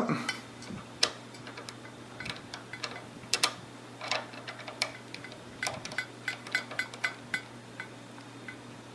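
Irregular small clicks and taps of hands working the water-cooling loop's fittings as the drain is plugged back up, over a faint steady hum.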